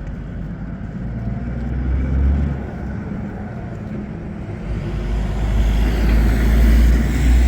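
Road traffic: cars passing on a street, one swelling about two seconds in and a louder one building near the end.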